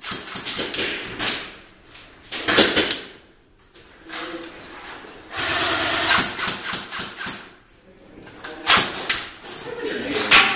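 Airsoft guns firing in bursts of rapid sharp clacks, stopping and starting several times.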